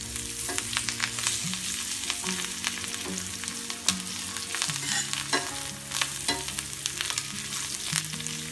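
Crushed urad papad and spices sizzling in hot oil in a kadhai, stirred with a spatula that clicks and scrapes against the pan every so often. The papad is frying crisp in the oil.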